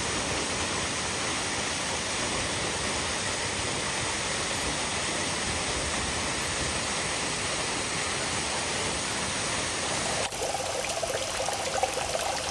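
Steady rushing of a mountain waterfall pouring down rocks. About ten seconds in the water sound changes abruptly and faint tones come in near the end.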